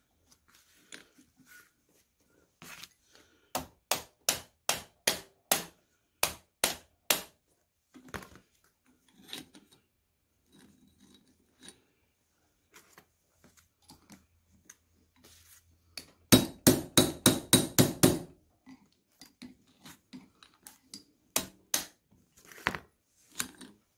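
Small hammer tapping a metal rod or punch on the end of a 12-volt starter's drive shaft, metal on metal, to work the snap ring off the shaft so the bendix drive can be removed. It comes as a run of light taps about three a second, then a quicker, louder run of about nine blows, then a few scattered taps near the end.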